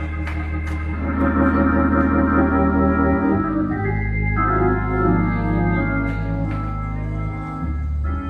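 Hammond-style drawbar console organ played with both hands in gospel style: held chords over a bass line, the chords changing several times.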